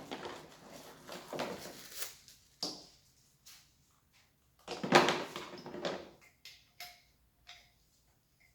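Hard plastic parts being handled: scattered knocks, clicks and rustles, with the loudest clatter about five seconds in.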